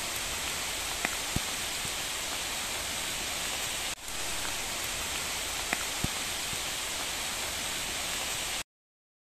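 Heavy rain falling steadily, an even hiss with a few light drip taps, cutting off suddenly near the end.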